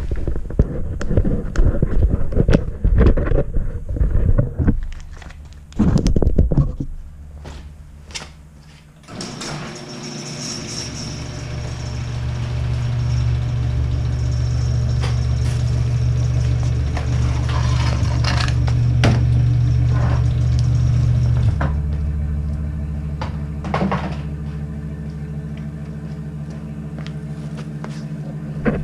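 Thumps and scrapes of equipment being handled, then from about nine seconds in a pickup truck's engine idling steadily, its hum stepping down a little a few seconds before the end.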